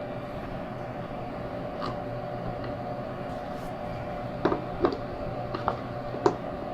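Small metal hardware, bolts, washers and nuts, being handled and fitted by hand, giving a few short sharp clicks and taps, most of them in the second half, over a steady background hum.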